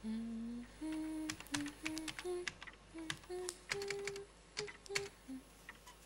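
A woman humming a slow tune in steady held notes that step up and down, over many irregular sharp clicks like typing.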